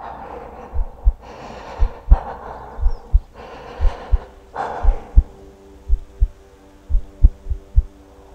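Film soundtrack sound design: a slow heartbeat of paired low thumps, about one pair a second, with heavy breaths in and out over the first half. From about halfway through, a low held drone of steady tones comes in.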